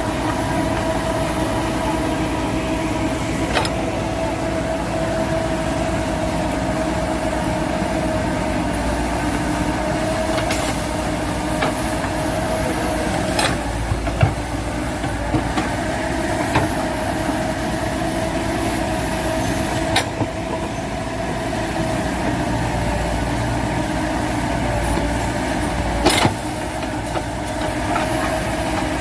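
JCB backhoe loader's diesel engine running steadily under work, with an even whine, and a few sharp knocks scattered through.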